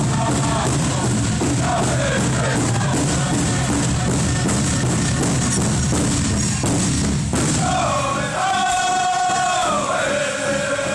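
Powwow drum group playing for a women's traditional dance: a big drum struck in a steady beat under high-pitched group singing. About seven seconds in the drumbeats stop while the singers carry on in high, falling phrases.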